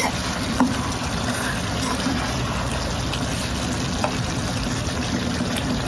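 Chicken simmering in its own juices in a nonstick pan, a steady liquid sizzle, with a few light clicks of a spatula against the pan as it is stirred.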